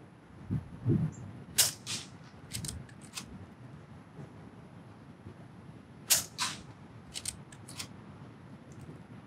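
Brocock Ghost HP .22 PCP air rifle fired twice, about four and a half seconds apart. Each shot is a sharp crack, followed by a second sharp click about a third of a second later and then a few lighter clicks.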